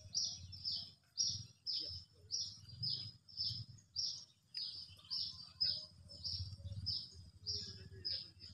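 A bird calling over and over, a short high chirp repeated evenly about twice a second.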